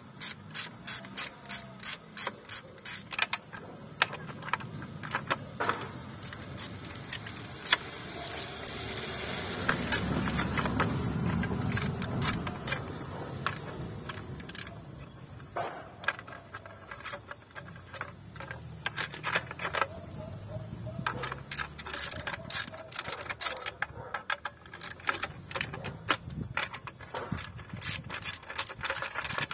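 Ratchet wrench clicking in quick runs as it backs out the engine cover's bolts. There is a stretch of duller noise without clicks around the middle.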